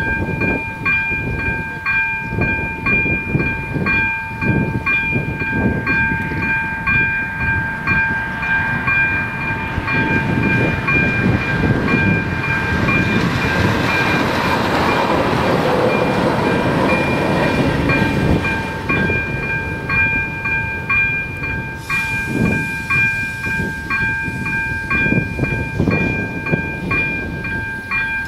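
Electronic level-crossing warning bell (AŽD ZV-02) ringing with a steady, evenly repeated ding while the crossing is closed for an approaching train. A rushing noise swells in the middle and fades again.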